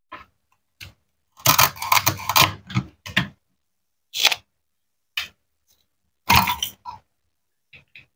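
Plastic toy fruit and vegetable pieces being cut and handled on a wooden cutting board: a string of short plastic clicks and knocks, with longer rasping, scraping stretches about a second and a half in and again around six seconds in.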